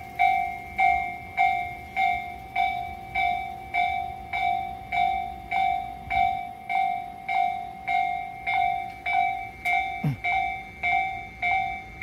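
Railway level-crossing warning bell ringing in an even, repeating ding, just under two strokes a second. It signals that the crossing is closed for an approaching train.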